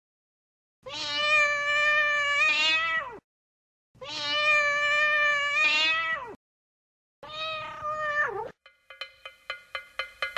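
A Siamese cat gives three long yowling meows, the third shorter and dropping in pitch at its end. Plinking, xylophone-like music starts near the end.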